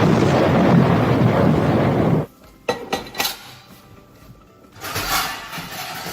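Loud sizzling as a wet mixture is poured into hot oil in a pan. The sizzle stops abruptly about two seconds in, followed by a few metal clinks of cookware.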